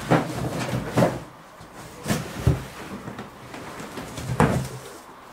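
A handful of short knocks and clatters at irregular intervals: small plastic firework caps being handled and set down on a metal-topped workbench.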